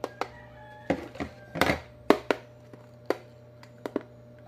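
Hard plastic parts of a solar street light, its lamp housing and mounting bracket, clicking and knocking as they are handled and fitted together: about a dozen sharp knocks at uneven intervals, the loudest a little under two seconds in.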